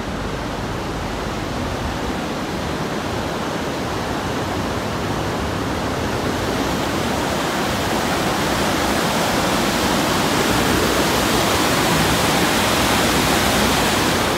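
River water rushing over shallow rapids: a steady hiss that grows louder through the second half.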